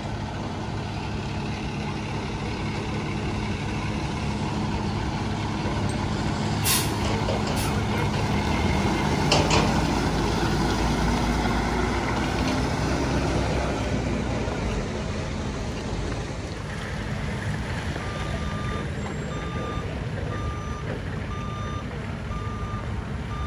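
Diesel engine of a Seagrave tower ladder fire truck running as it pulls in. Its air brakes hiss twice, briefly, and from about three-quarters of the way in its reverse alarm beeps about once a second as it backs into position.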